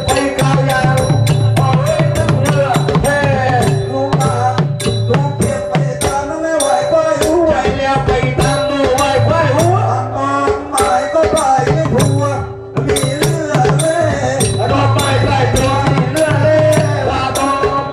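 Southern Thai Nora ensemble music: a sharp, even clicking beat about two to three times a second over a rolling drum, with held tones and a wavering melody line above.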